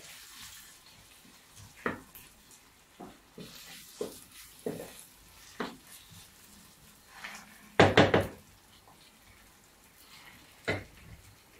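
Wooden spoon stirring vegetables in a ceramic bowl, with scattered light knocks of the spoon against the bowl and one louder clatter about two-thirds of the way through.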